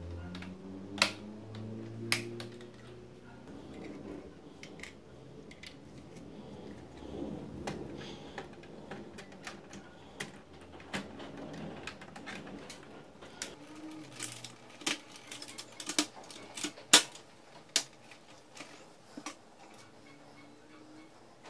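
Irregular sharp plastic clicks and clacks from the parts of an HP LaserJet Pro M278-M283 series printer as they are handled and its toner cartridge tray is worked out of the frame. The clicks come in a quick cluster about two-thirds of the way in, where the loudest one falls.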